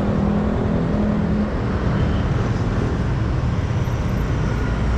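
Motor scooter being ridden, its engine running under steady wind and road noise, with a low steady engine hum that fades into the noise about a second and a half in.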